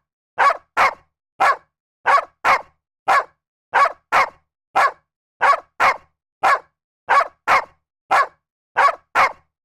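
A dog barking over and over: short, sharp barks at a steady pace of roughly two a second, often coming in pairs, with silent gaps between them.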